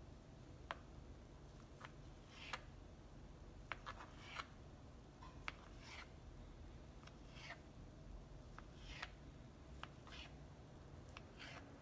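Kitchen knife slicing through a log of soft cookie dough and tapping the cutting board: faint sharp clicks and short soft scrapes, one cut about every second and a half.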